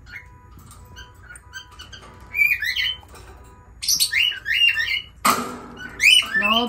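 Lutino peach-faced lovebird calling in short, sharp chirps that sweep quickly in pitch. The chirps come in two bursts, about two and four seconds in, followed by a harsh, noisy squawk about five seconds in.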